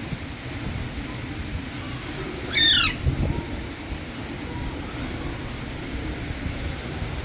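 Alexandrine parakeet giving one loud, harsh squawk about two and a half seconds in, over a steady low rumble.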